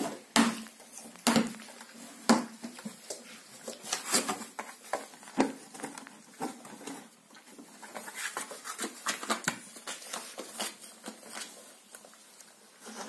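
Kooikerhondje puppies scrambling in and around a cardboard box: irregular knocks, bumps and scratchy clicks of paws and bodies against the cardboard.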